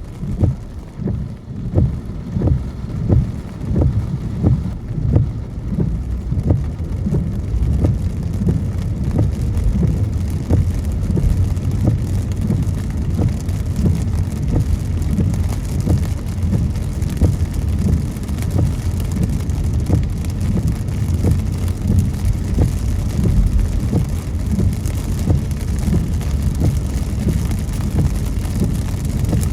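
A car driving in rain: a steady low rumble of the car and its tyres on the wet road, with the hiss and patter of rain on the car.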